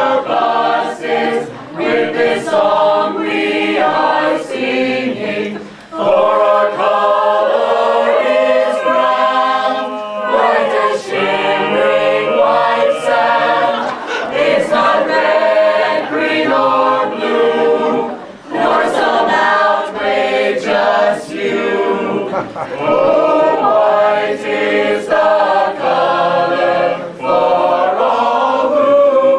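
A choir singing a cappella in several-part harmony, phrase after phrase, with two short breaks between phrases.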